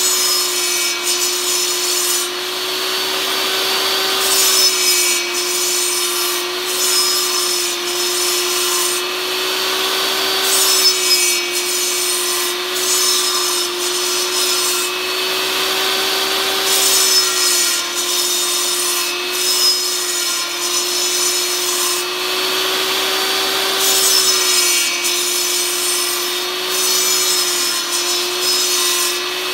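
Portable table saw running steadily, its motor tone dipping slightly each time the blade bites, as a 2x4 block on a rotating jig is cut again and again to round it. Each pass brings a burst of rasping cutting noise, every few seconds.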